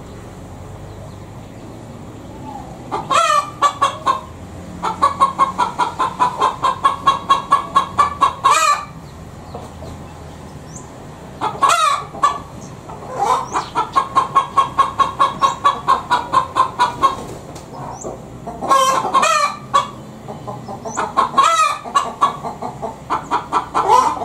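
Domestic hen cackling: runs of quick clucks, about four a second, broken every few seconds by a louder, longer squawk that bends up in pitch, the 'petok-petok' hen call.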